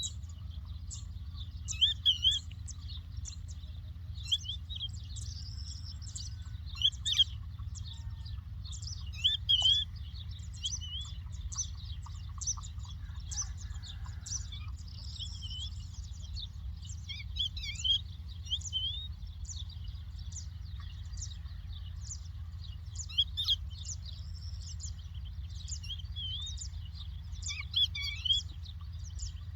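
Larks singing: a dense, continuous twittering of short high chirps and trills, with louder notes standing out every few seconds, over a steady low rumble.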